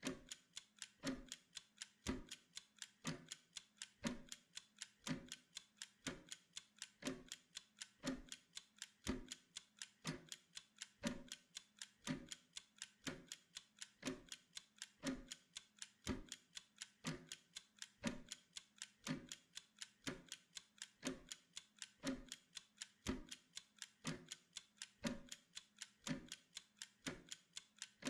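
Steady mechanical ticking of a timer, about two ticks a second, with every other tick stronger in a tick-tock rhythm.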